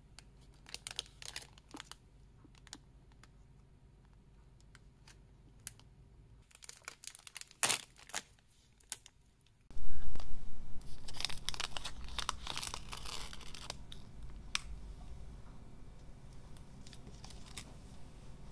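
Plastic snack wrapper of a Big Katsu crinkling in the hands, then torn open suddenly about ten seconds in with a loud burst of crackling that fades as the breaded cutlet is drawn out.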